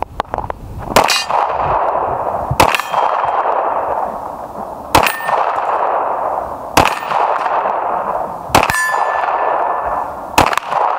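Six pistol shots from a Smith & Wesson M&P Core, spaced about two seconds apart, each followed by the ringing of a struck steel target. The hits ring on until the next shot.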